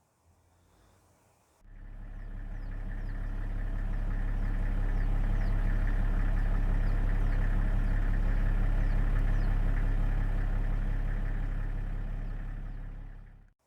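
Giraffe humming: a long, steady, low drone with a stack of overtones that swells in and fades out.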